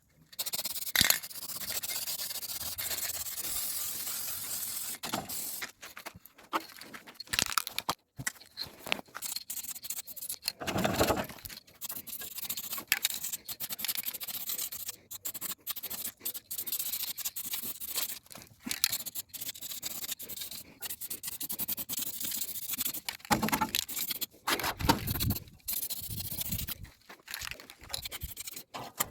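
Aerosol spray paint can hissing as paint is sprayed in repeated passes: one long spray at the start, then a run of shorter sprays with brief gaps, with a few dull handling bumps in between.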